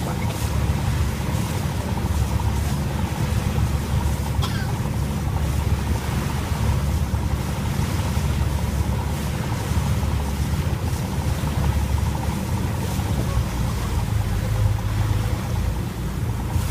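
Sightseeing boat's engine running steadily, with wind noise on the microphone.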